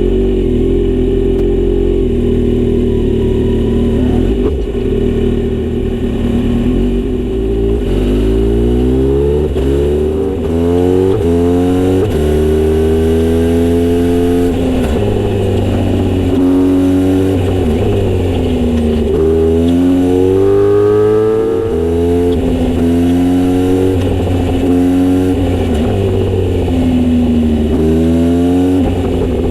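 Kawasaki Z900RS inline-four engine through a Misty Kintaro short-pipe exhaust with a 70 mm silencer, running loud. The engine note holds steady for the first several seconds, then rises and falls in pitch again and again as the bike accelerates and slows.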